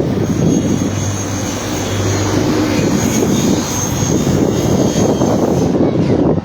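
Loud, steady engine noise with a low hum and a thin high whine, cutting off abruptly at the end.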